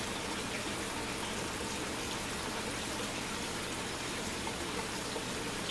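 Steady rushing water noise, even and unbroken, with a faint low hum underneath.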